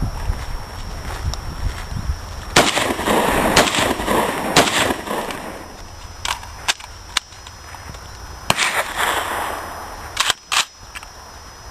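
Gun fired in semi-automatic, single shots at uneven spacing: three loud shots about a second apart, then several more, some fainter, each loud one followed by a rolling echo.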